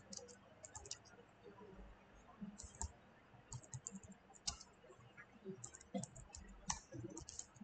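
Computer keyboard being typed on, faint: scattered keystrokes in short irregular runs.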